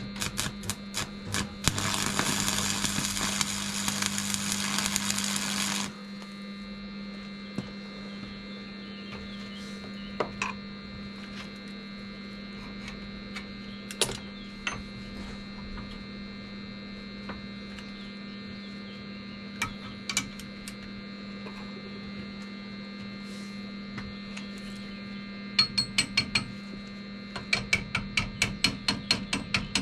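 Steady electrical hum throughout. About two seconds in there are four seconds of hissing noise, then scattered knocks, and near the end a fast run of clicks, about five a second.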